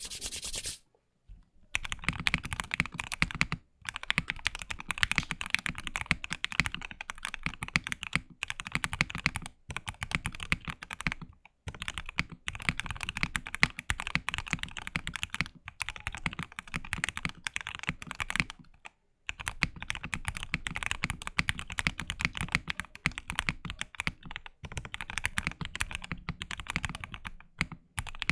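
Maggio 60 custom mechanical keyboard with Gateron North Pole switches, a POM plate and case foam, typed on quickly in long runs of keystrokes broken by brief pauses.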